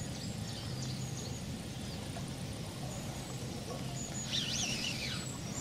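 Quiet riverside ambience with small birds chirping faintly, and a louder, wavering twittering phrase from a bird about four seconds in.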